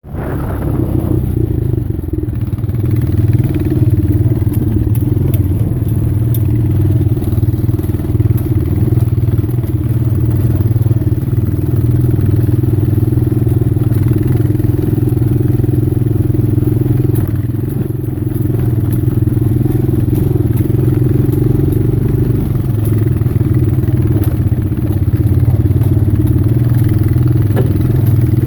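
A vehicle engine running steadily, a loud low drone that holds an even pitch, with slight dips in level around a third of the way in and again past halfway.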